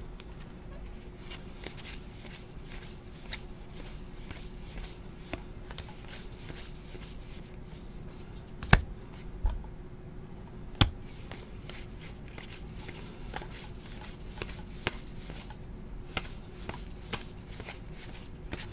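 2018 Topps Heritage baseball cards being flipped and sorted by hand: a light run of card-on-card slides and ticks, with two sharper clicks about nine and eleven seconds in, over a faint steady hum.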